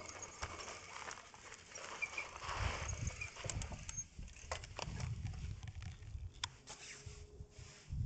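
Electric bike rolling over a rough dirt road: tyres on gravel with scattered knocks and rattles from the bike, over a low uneven rumble. It dies down near the end as the bike comes to a stop.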